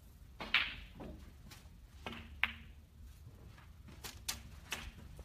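Sharp clicks of snooker balls: cue tip on cue ball and balls striking each other, with the loudest click about half a second in and several more through the rest.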